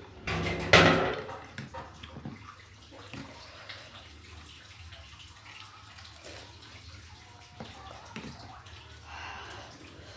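A loud slurp of hot spicy broth from a spoon about a second in, followed by soft chewing and wet mouth sounds of eating meatballs.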